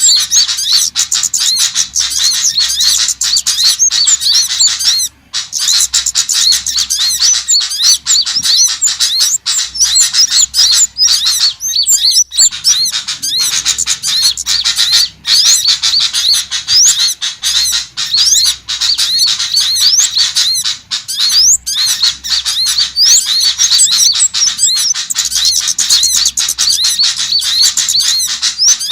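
Bird-lure recording of many small songbirds chirping together: a dense, unbroken stream of rapid, high-pitched, overlapping calls, meant to attract small birds.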